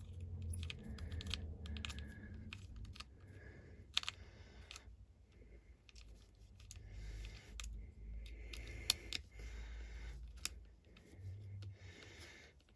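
Small Phillips screwdriver tightening the tiny screw into a plastic car key fob: faint, scattered clicks and scrapes with a low handling rumble.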